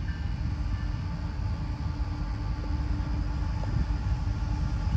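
Approaching diesel-hauled freight train: a steady low rumble that slowly grows louder.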